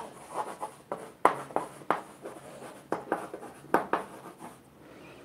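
Chalk writing on a chalkboard: a run of sharp taps and short scratches as words are written, stopping about four and a half seconds in.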